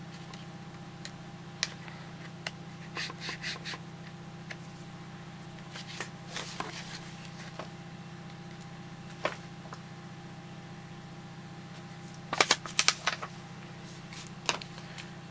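Hard plastic clicks and clacks of an Asus netbook battery pack and case being handled and fitted together, with a burst of louder clacks near the end, over a steady low hum.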